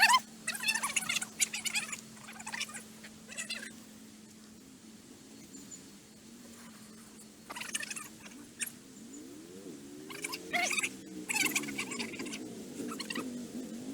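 Clusters of short, high, scratchy animal calls, several in a row near the start and more later on. From about nine seconds in, a low engine hum rises and falls in pitch underneath.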